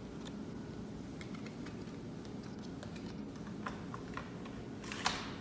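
Scattered light clicks of buttons being pressed on a vending machine's keypad, with one sharper click near the end, over a steady low hum.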